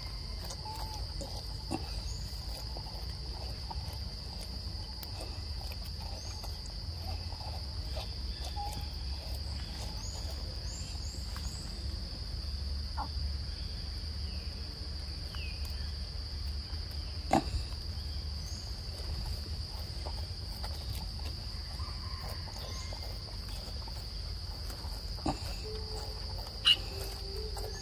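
Steady high-pitched drone of insects, with a low rumble underneath and a few sharp clicks, the loudest about two-thirds of the way in and again near the end.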